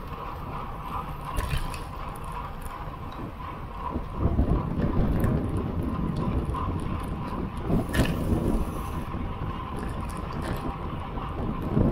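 Wind rushing over the microphone of a camera on a moving road bicycle, with low rumble from riding on the asphalt. The wind buffeting grows louder about four seconds in, and a sharp click sounds about two-thirds of the way through.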